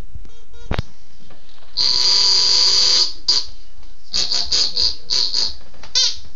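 Duck Dynasty duck call blown by mouth: one long drawn-out quack about two seconds in, then a quick run of short quacks, a few a second, from about four seconds on.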